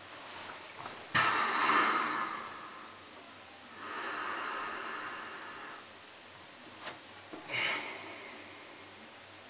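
A person breathing out heavily three times, long noisy exhales. The first starts suddenly about a second in and is the loudest; a couple of small clicks come just before the last one.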